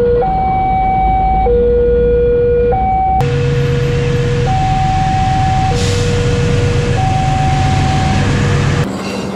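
Railway level-crossing warning alarm sounding a steady two-tone high-low signal, each tone held about a second. From about three seconds in, a diesel locomotive's engine runs beneath it as the train comes through the crossing.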